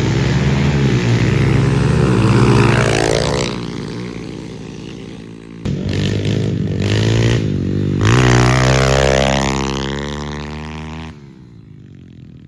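Engine revving hard and unevenly: it falls off about three seconds in, picks up sharply again near six seconds, revs once more, then cuts out suddenly near the end. The engine dying is taken as the machine being finished, "cooked."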